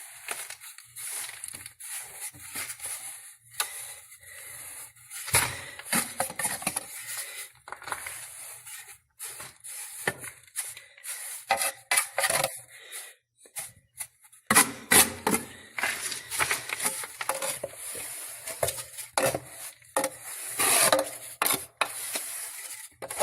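Hand masonry work: irregular scraping, rubbing and clinking of tools on loose salt and masonry as a bed of salt is spread for a fireplace hearth.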